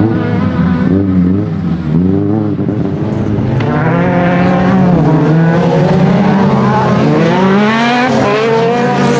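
Autocross race cars' engines running flat out on a dirt track, their note climbing and dropping again and again with throttle and gear changes, over a rough hiss of tyres on loose dirt.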